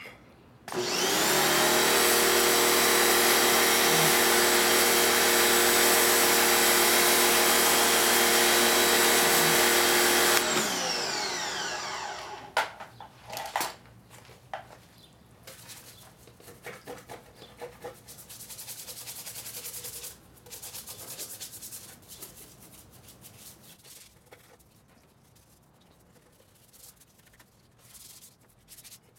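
Pressure washer motor and pump running steadily while a foam cannon sprays soap, for about ten seconds. The motor then winds down as the trigger is released. Quieter rubbing and scrubbing of wet, soapy engine parts follows.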